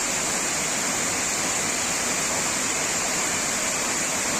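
Waterfall: a tall cascade of water falling down a rock face, a steady rushing hiss that holds at an even level.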